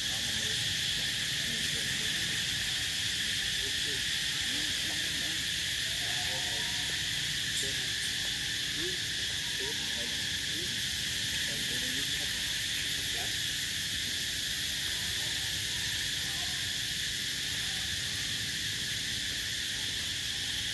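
A steady, high-pitched insect chorus droning without a break. Faint short gliding calls come and go in the background through the first half.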